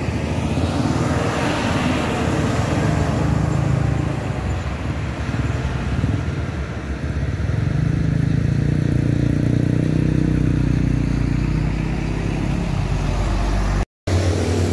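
Heavy trucks' diesel engines working through a steep hairpin bend, with a small car passing; the engine note swells and falls as the vehicles go by. The sound drops out for a moment near the end.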